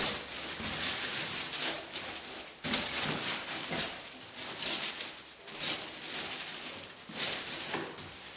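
Crumpled aluminum foil crinkling and crackling as a foil-wrapped cardboard piece is pressed into a foil-lined cardboard box, in irregular rustles with a sharper crackle about two and a half seconds in.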